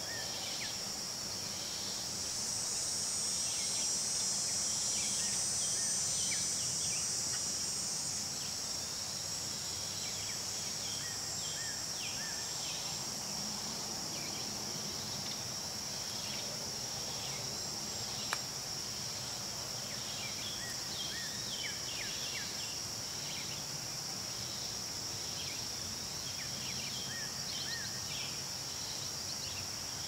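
Late-summer insect chorus of crickets and katydids: a steady high-pitched drone that swells louder from about 2 to 8 seconds in. Many short high chirps are scattered through it, and there is a single sharp click about 18 seconds in.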